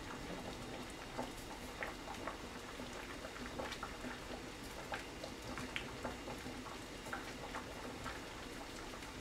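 Faint bubbling of a pot of corn boiling on a gas stove: a low steady hiss with scattered small irregular pops and ticks.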